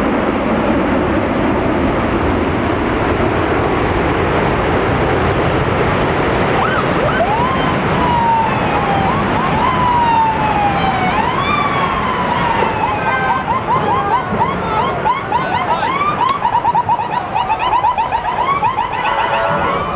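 Emergency vehicle sirens start about seven seconds in over a loud, steady wash of noise. Each siren gives slow rising and falling wails, then switches to a fast yelp from the halfway point.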